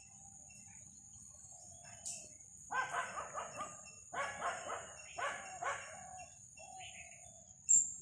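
A steady high-pitched whine under a series of four pitched animal calls in the middle, with one sharp tick near the end.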